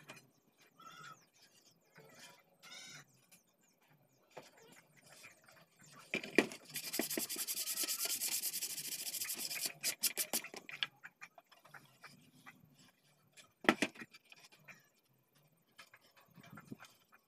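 A thin plywood strip rubbed down by hand, fast back-and-forth strokes making a dry scratching hiss for about three seconds. Sharp wooden knocks come just before it and again later, as the pieces are set down on the workbench.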